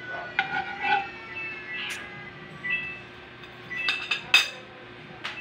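Background music with short held notes, over which come several sharp clinks of kitchenware, the loudest a little past the middle.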